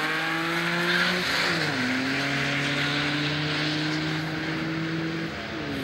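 A drag-racing car's engine at full throttle down the strip. The pitch climbs steadily and drops sharply twice, about a second and a half in and again near the end, as it shifts up through the gears.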